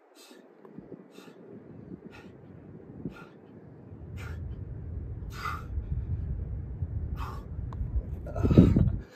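A man breathing hard through push-ups, with sharp exhales about once a second over a low rumble that builds from about halfway. Near the end comes one loud, strained groan as he sinks to the bottom of a rep.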